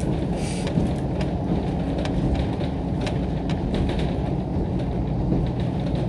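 Inside a diesel railcar under way: a steady low rumble of the engine and the wheels on the track, with scattered sharp ticks.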